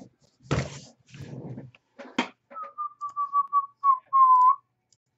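A person whistling a short run of quick notes that step slightly downward and end on one longer held note, after a couple of brief rustling noises.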